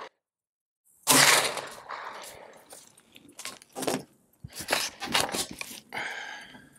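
A single 9mm shot from a Grand Power Stribog SP9A3G carbine about a second in, dying away over about a second, followed by several light clicks and knocks as the gun is handled on a wooden bench.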